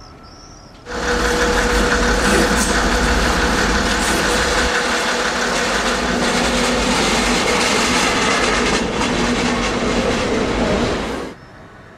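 Metre-gauge electric locomotive and its passenger coaches running past close by, the wheels and running gear loud over the rails, with a steady whine from the locomotive. It starts suddenly about a second in and stops abruptly shortly before the end.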